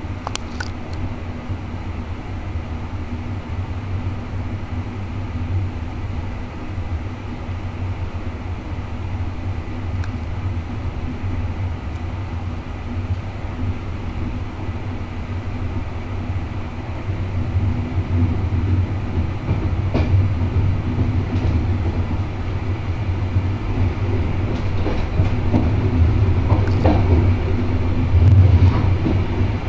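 Passenger train running along the track, heard from on board: a steady low rumble with a few sharp clicks of wheels over rail joints and points, growing louder over the second half.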